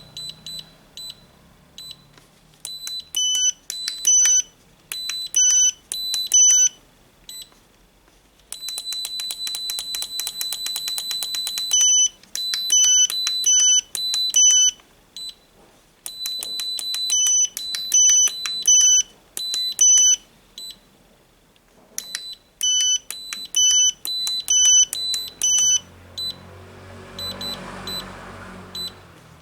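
X6 radio transmitter beeping as its buttons are worked: quick runs of short electronic beeps at two pitches, with one steady beep lasting about three seconds roughly a third of the way in. The beeps come while its trims and model settings are being reset. Near the end a soft low whirr swells briefly.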